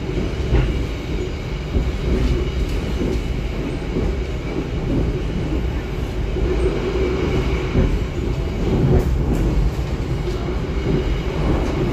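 Inside a Jayakarta Premium economy passenger coach on a moving train: a steady rumble of the wheels on the rails, with occasional faint clicks and knocks from the running gear.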